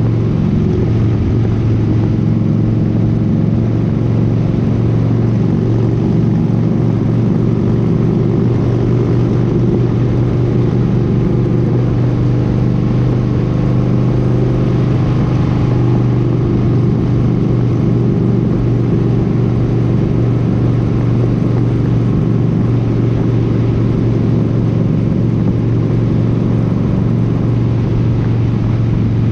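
Cruiser motorcycle engine running steadily at highway cruising speed, a constant low drone with wind and road noise over it.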